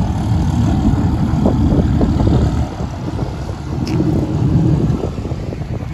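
Vehicle engine rumbling, loud and uneven, easing off about halfway through and then building again, with one brief sharp tick near the four-second mark.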